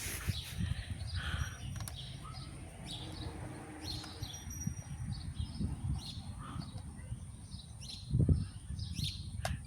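Small birds chirping now and then in the background, over low rustling handling noise, with a dull bump about eight seconds in.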